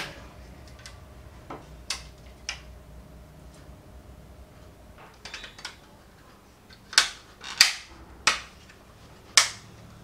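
Plastic clicks and snaps from an air conditioner remote control's casing being handled and its halves pressed together. The clicks are short and scattered, with the loudest ones coming between about seven and nine and a half seconds in.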